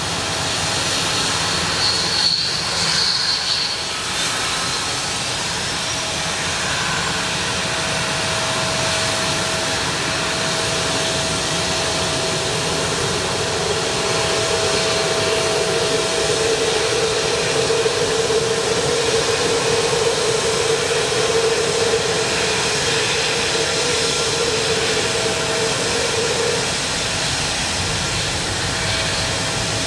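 Boeing 777-200ER jet engines running on the ground, a steady rush with a steady whine. A thin high whine climbs in pitch over the first dozen seconds, and a louder hum swells in around the middle and drops away a few seconds before the end.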